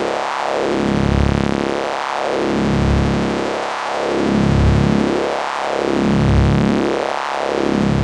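Synthesized science-fiction electricity sound effect: a steady electric buzz whose tone sweeps up and down about once every second and three-quarters.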